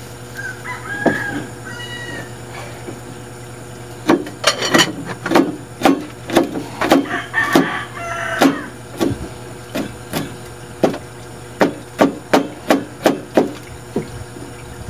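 Kitchen knife chopping garlic on a chopping board: a run of sharp knocks, about two to three a second, a pause, then a second run of chops.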